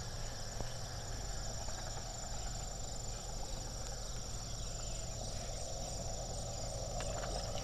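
Steady chorus of insects chirping, with faint continuous high-pitched trilling.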